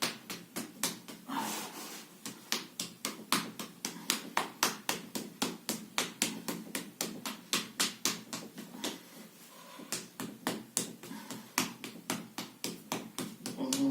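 Rapid rhythmic slapping of a hand beating on the arm in percussive self-massage, about three to four strikes a second, with a short lull just under two-thirds through.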